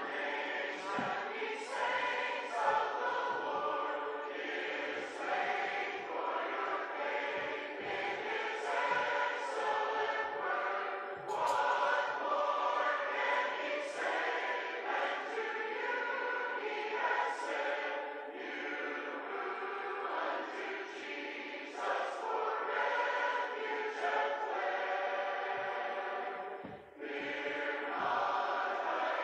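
Recorded choir singing, played from a tablet as closing music, with a brief pause near the end.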